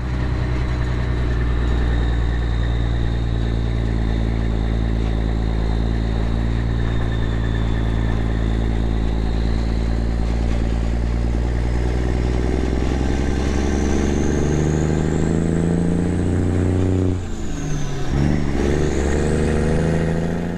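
Grain truck's engine running under way, a steady drone with a faint high whine above it. About two-thirds of the way in and again near the end the engine note shifts and dips briefly, as on a gear change.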